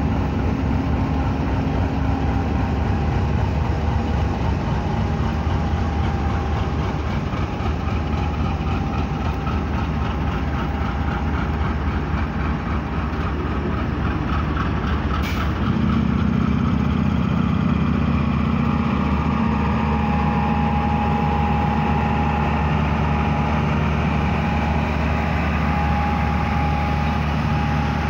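Pakistan Railways AGE-30 diesel-electric locomotive 6013 running under load as it pulls a passenger train slowly away from the platform, a steady diesel engine note. About halfway through the engine sound grows deeper and a little louder as the locomotive draws past, just after a single sharp click.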